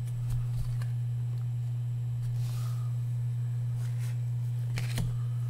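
A steady low hum, with a few faint clicks and rustles of baseball cards being slid through by hand.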